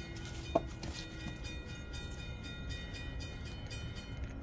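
Steady low background rumble with faint steady whining tones, and a single sharp click about half a second in.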